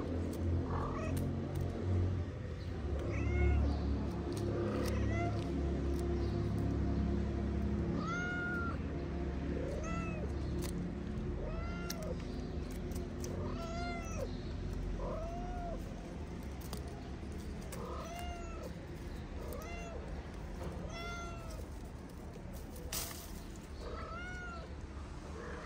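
Tabby kittens meowing over and over: short rising-and-falling cries about once a second, at two different pitches.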